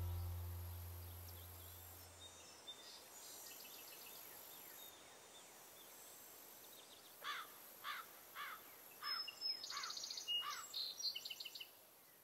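Background music fading out, then faint outdoor ambience with a bird singing: a run of quick downward-slurred whistled notes about two a second, followed by a burst of higher, faster chirps near the end.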